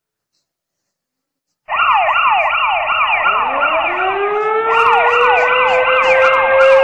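Near silence, then a siren starts abruptly about two seconds in: a rapid yelp of quick falling sweeps, over a second tone that winds up in pitch and settles into a steady wail. The yelp stops near the end.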